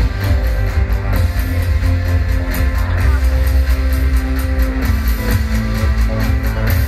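Loud show music for the lantern light show, with a heavy bass and a steady beat.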